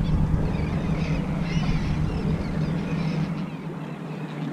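Boat motor running steadily, with wind rumbling on the microphone until about three seconds in.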